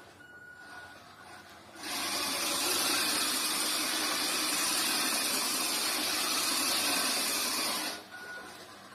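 An old QD toy RC touring car running on a tiled floor: its small electric motor and drivetrain give a steady, loud whirring hiss that starts suddenly about two seconds in and cuts off abruptly near the end. A faint, broken high beep comes before it.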